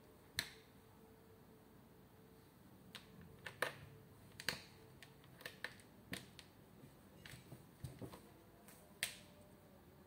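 About a dozen irregular, sharp clicks from a person's fingertip tapping the fridge's metal top edge.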